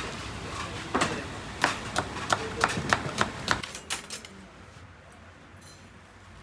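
A run of sharp, irregular knocks, about three a second, that stops about three and a half seconds in, leaving a quieter steady background.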